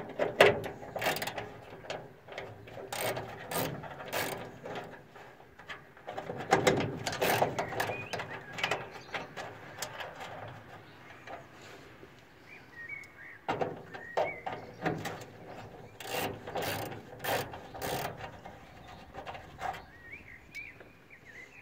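Ratchet wrench with an 8 mm socket clicking in quick runs as it backs out the grille's mounting bolts. There are short pauses between the runs.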